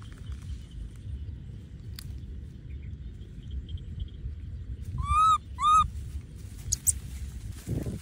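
Two short, rising-then-falling cries from a baby macaque about five seconds in, half a second apart, over a steady low rumble.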